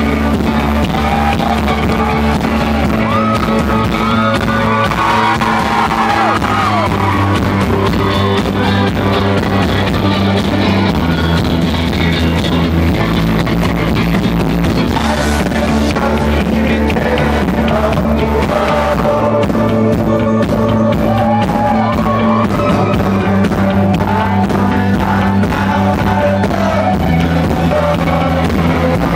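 Live rock band playing loud and steady, with a sung vocal line over guitars and drums.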